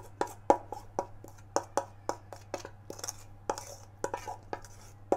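A spoon scraping génoise batter out of a stainless steel mixing bowl, knocking sharply against the bowl about three or four times a second.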